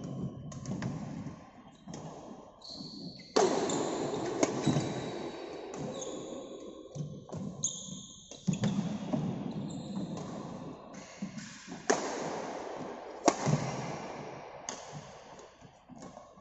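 Badminton rackets striking shuttlecocks in rapid rallies: sharp irregular hits, two of them much louder than the rest, mixed with players' footfalls on the court floor. Each hit echoes in the large hall.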